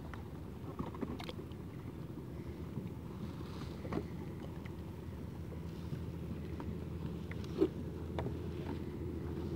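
Steady low rumble of water moving against a kayak's side, with a few light clicks and knocks about one, four and seven and a half seconds in.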